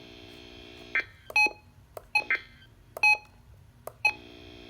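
Weather radio broadcast audio between messages: a steady electrical buzz cuts out about a second in. Several short electronic beeps follow, resembling touch-tone tones, and the buzz returns near the end.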